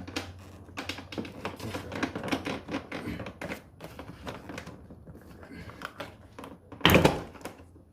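Plastic air intake housing of a BMW X6M being pulled up off its rubber grommets and worked out of the engine bay: a run of light plastic clicks and rattles, with one loud knock about seven seconds in.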